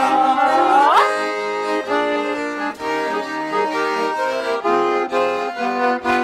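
Garmon (Russian button accordion) playing an instrumental interlude of a folk song in stepped chords and melody. The singers' held last note ends with an upward slide about a second in.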